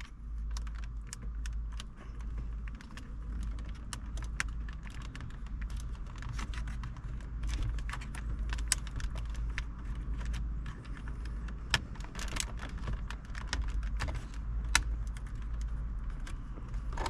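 Irregular small plastic clicks and taps of a pry tool working at a BMW climate control panel's button caps, over a steady low hum.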